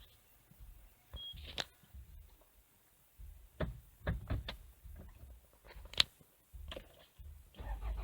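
Scattered clicks and knocks with a short high beep about a second in; near the end the 2003 Toyota Noah's 1AZ-FSE engine begins cranking on the starter, an engine with a hard-start and stalling fault.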